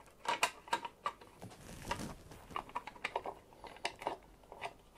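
Light, irregular clicks and taps of a hand screwdriver and screw knocking against a plastic chair side cover as it is held in place and lined up, with a short scraping rub about two seconds in.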